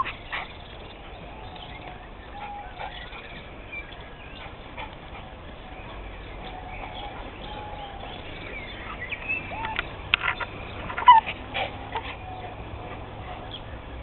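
A small dog whining in short, high whimpers that come thicker and louder about two-thirds of the way through.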